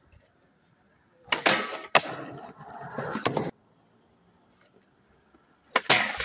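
Skateboard on concrete: a sharp clack of the board about a second and a half in, then wheels rolling and scraping until the sound cuts off suddenly. Near the end, a couple of loud clacks as the board pops and lands on a metal flat rail, then grinds along it.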